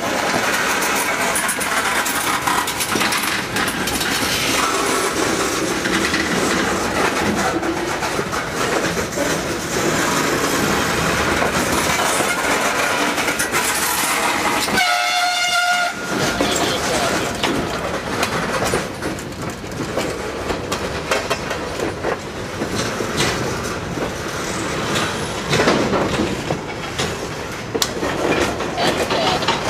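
Railroad tank cars being shoved past at close range, their steel wheels rumbling and clicking over the rails and switch. A brief pitched tone sounds about halfway through.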